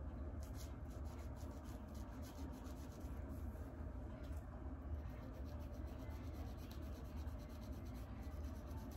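Plastic fine-tooth comb scraping against the scalp in runs of quick, short scratchy strokes, loosening dry flakes.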